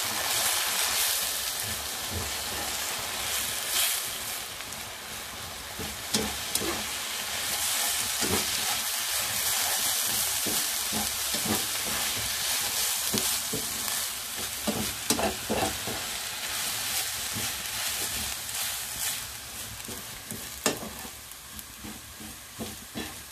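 Red chili spice paste sizzling in hot oil in a non-stick frying pan as a spatula stirs it through toasted desiccated coconut, scraping the pan with repeated irregular strokes. The sizzle grows quieter near the end.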